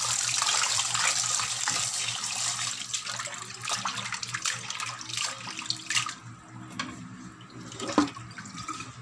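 A water tap running into a basin while raw chicken wings are rubbed and swished by hand in the water. About six seconds in, the running water stops, leaving scattered splashes and one sharp knock near the end.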